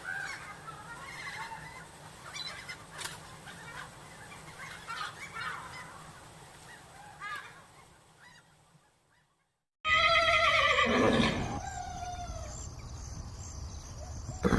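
Animal calls: a run of faint short calls, a second of silence, then a loud call about ten seconds in that falls in pitch.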